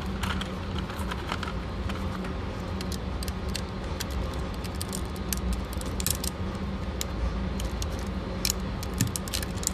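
A cartridge being pushed into a Canik pistol magazine that is nearly full, the 19th round of 20: scattered small metallic clicks and scrapes of brass against the magazine. A steady low hum runs underneath.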